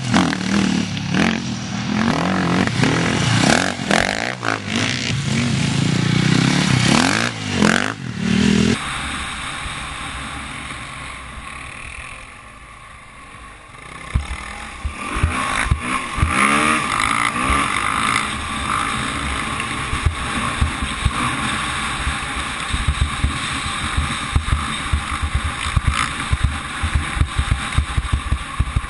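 Off-road dirt bike engines revving up and down as the bikes ride a dirt track. About nine seconds in the sound changes abruptly to a dirt bike heard from on the bike, running along a bumpy track with wind on the microphone and frequent knocks.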